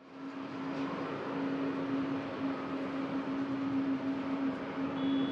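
Boeing 737-800's CFM56-7B turbofan engines at takeoff power during the takeoff roll, heard from a distance: a steady jet noise with a steady hum under it. It fades in over the first half second.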